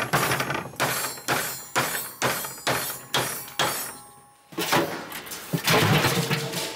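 A hammer striking metal about twice a second in an even rhythm, each blow ringing briefly, as in beating cutlery into shape. After a short lull about four seconds in, denser clattering noise follows.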